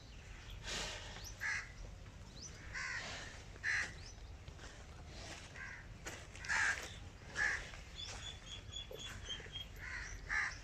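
Crows cawing repeatedly, with short harsh calls spaced a second or so apart. Near the end a small bird gives a quick run of high, evenly spaced chirps.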